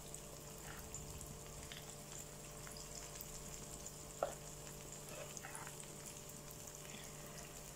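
Unniyappam batter frying in hot sunflower oil in the cavities of a cast-iron unniyappam pan: a faint steady sizzle with small crackles. A single light click comes about four seconds in.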